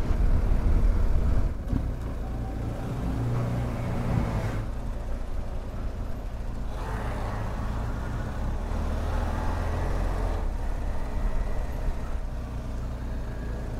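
BMW R1250GS boxer-twin engine running at low city speed, mixed with wind and road noise that is loudest in the first second or so and then eases off as the bike slows.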